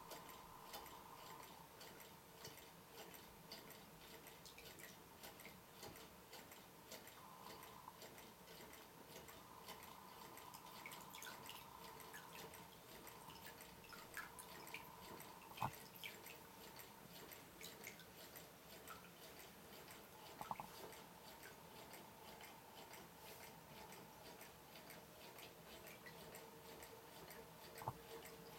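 Quarter-scale Rider-Ericsson hot air pumping engine running slowly and faintly, with soft mechanical ticking and water dripping from its pump spout into the bucket. A few louder clicks stand out.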